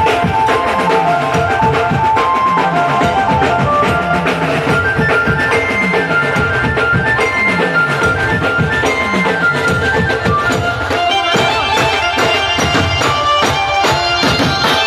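Loud music with a melody over dense drumming and a low booming tone that slides down in pitch about every second and a half; the drumming turns busier about eleven seconds in.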